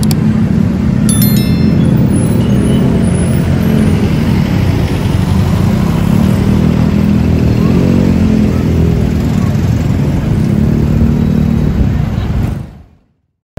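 Night street traffic: cars and a motorcycle driving slowly past, with a steady low engine hum and street noise, fading out near the end. A short chime sounds about a second in.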